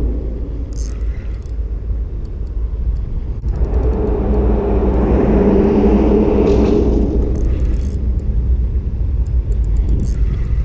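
Low, steady rumble of road traffic on the bridge overhead, with a vehicle's hum swelling in the middle and fading after. Scattered light clicks of a spinning reel being worked run over it.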